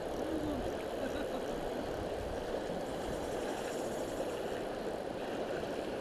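Steady rush of a river running high and fast, an even wash of water noise with no breaks.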